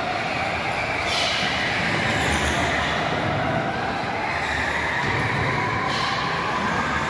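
Electric go-karts running laps on the track, their motors whining under a steady hiss, the whine's pitch climbing slowly.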